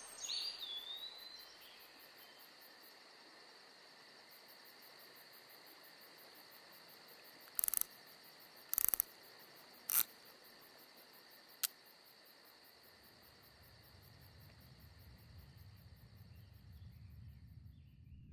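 Faint night ambience of crickets chirping steadily, with a short gliding chirp at the start. About halfway through come four short, sharp clicking noises, the last one briefest, and a low rumble swells in near the end.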